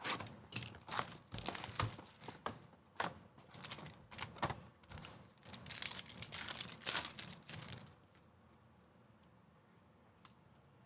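Trading-card pack wrapper being torn open and crinkled by hand: a quick run of crackles and rips that stops about eight seconds in.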